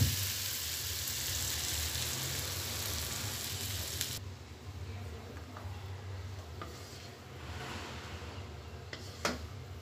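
Chickpea and cabbage stir-fry sizzling in a non-stick wok as a wooden spatula stirs and scrapes it, opening with a knock of the spatula against the pan. The sizzle cuts off suddenly about four seconds in, leaving only faint scraping and a short knock near the end.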